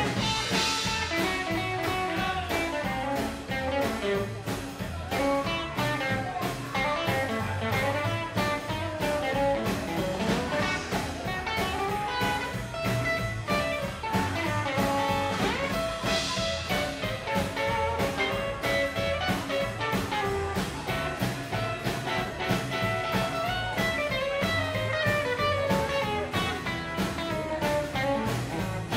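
Live rockabilly band playing: electric and acoustic guitars over an upright double bass and a drum kit keeping a steady beat.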